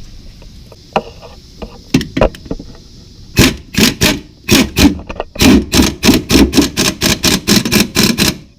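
A few scattered clicks, then from about three and a half seconds in a fast, even run of sharp knocks, about three a second: hand-tool work on a car's strut and air-bag mount.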